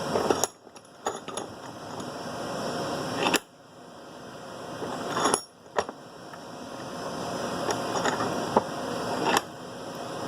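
Steady hiss and hum from the running broadcast transmitters, broken by several small clicks and knocks as an XLR connector and tools are handled. Three times the background drops out abruptly after a click and then slowly swells back.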